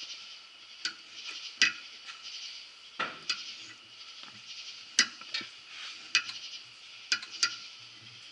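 A reamer in a Stevens axle fixture is turned by hand to cut the worn threads out of a Model T Ford front axle's spindle-bolt bore. The metal gives sharp clicks and clinks at irregular intervals, about eight of them, over a steady high hiss.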